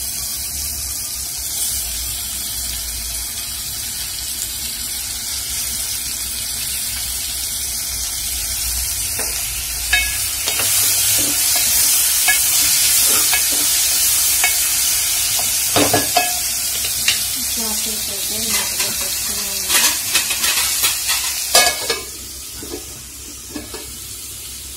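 Chopped tomatoes sizzling in hot oil with fried onions in a metal pot, with a spoon stirring and knocking against the pot from about ten seconds in. Near the end a metal lid goes on with a clank and the sizzle drops to a quieter, muffled hiss.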